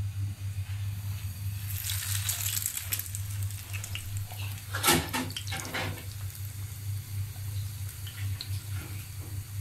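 Egg-soaked bread slices sizzling in hot oil in a frying pan, with the hiss flaring up about two seconds in as a slice goes into the oil. About five seconds in comes a sharp knock, the loudest sound, and a steady low hum runs underneath.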